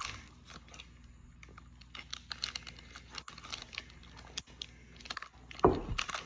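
Wrapper of a Topps Heritage baseball card pack crinkling and tearing as it is peeled open by hand, in a run of small irregular crackles, with a louder rustle near the end.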